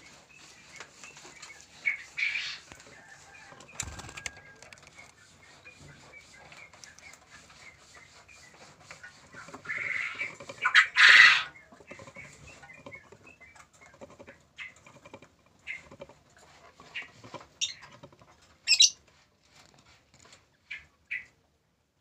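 Lovebirds disturbed in a wooden nest box: short sharp squawks come and go, and a loud flurry of flapping and squawking about ten to eleven seconds in is the loudest moment. Faint scrapes and knocks of hands handling the nest box run underneath.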